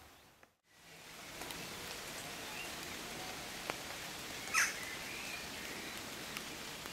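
Outdoor garden ambience: a steady hiss with a few faint bird chirps and one short, sharp bird call about halfway through, the loudest sound. The sound fades out right at the start and comes back after about a second.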